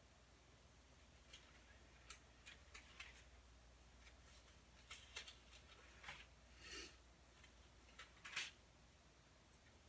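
Thin Bible pages being turned by hand: a series of faint, short paper rustles, the strongest about eight and a half seconds in.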